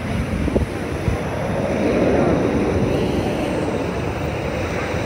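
Jet noise from an F-22 Raptor's twin Pratt & Whitney F119 turbofan engines, swelling to its loudest about two seconds in and then easing slightly.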